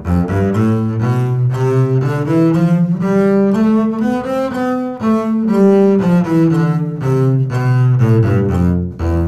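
A double bass bowed arco, playing a two-octave scale up and then back down. The notes come in a repeating short rhythm pattern that mixes eighth and sixteenth notes.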